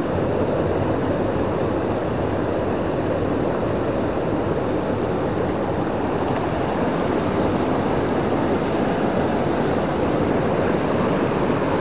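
Mountain torrent rushing over boulders: a steady, unbroken noise of whitewater cascading close by.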